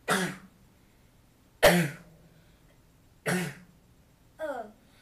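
A boy coughing hard, three sudden coughs about a second and a half apart, the middle one the loudest, then a short falling groan near the end.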